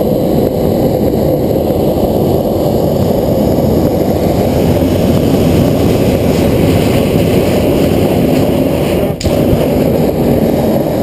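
Hot air balloon's propane burner firing in one long continuous blast, a loud steady roar heating the envelope for takeoff, with a brief break about nine seconds in.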